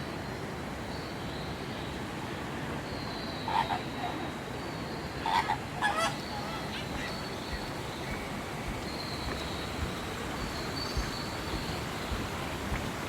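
Rainforest-hall ambience: a steady background hiss with a high, thin chirring tone that comes and goes, and a few short honking animal calls, one about three and a half seconds in and a quick group of three around five to six seconds in.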